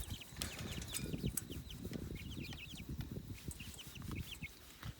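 Young chickens peeping: runs of short, quickly falling high cheeps, several a second, with low rustling and thumps underneath.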